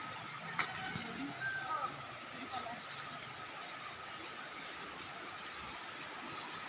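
Steady wash of a flowing river, with a small bird twittering in quick, high chirps for about three seconds from about a second in. A single sharp click just after the start.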